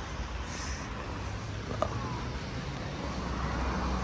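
Steady outdoor street noise with a low rumble of traffic, and a single sharp click a little under two seconds in.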